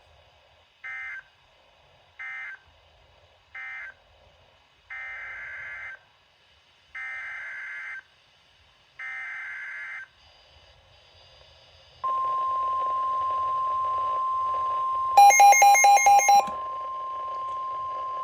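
NOAA Weather Radio EAS data tones: three short end-of-message bursts close the severe thunderstorm warning, then three longer header bursts announce the next warning. From about twelve seconds in comes the steady 1050 Hz warning alarm tone. Partway through the alarm tone, a rapid run of loud electronic beeps sounds over it for about a second.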